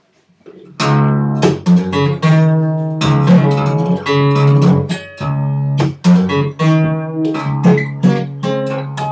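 Acoustic guitar played fingerstyle, starting about a second in: plucked melody notes ringing over low bass notes.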